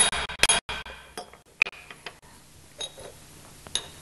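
Ball-peen hammer striking a steel block to drive a pinion bearing race into its pinion support housing: two or three sharp, ringing metal strikes in the first half second, their changed sound marking the race fully seated in the bore. After that come a few light metal clinks as the hammer and parts are set down and handled.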